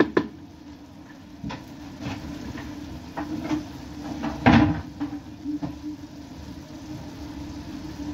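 Pot of bulgur with tomato simmering, giving a few soft pops and clicks over a steady low hum, with one louder knock about four and a half seconds in.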